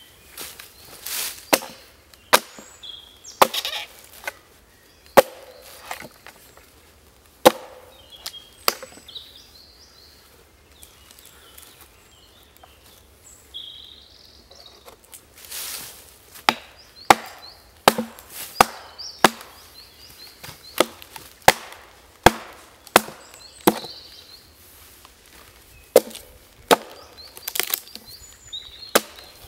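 Hatchet chopping into a fresh log, hewing out its inside: sharp, separate wood strikes, a quieter spell of several seconds near the middle, then faster chopping at about one to two strokes a second.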